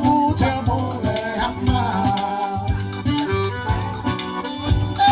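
Forró band music with no lead vocal: a sustained melody line over a steady bass and drum beat, with light percussion on top.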